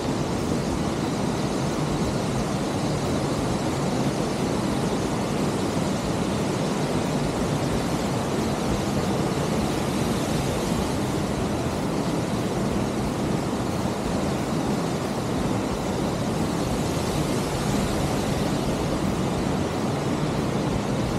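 A twin waterfall pouring into its plunge pool: a steady, even rush of falling water.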